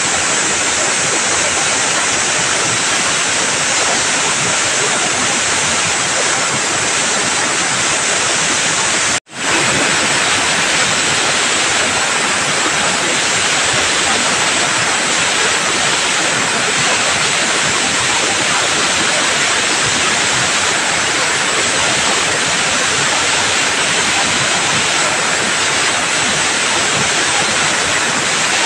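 Steady loud hiss of a machine-cleaning tool's jet, cutting out for a split second about nine seconds in.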